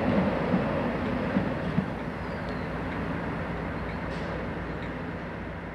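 Diesel multiple unit running slowly along the platform road, wheels giving a few sharp clacks over rail joints in the first two seconds. A steady low rumble follows and fades.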